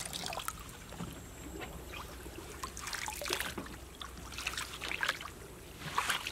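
Bare feet splashing and squelching through shallow water and mud, with small irregular splashes and trickles, thickest about three seconds in and near the end.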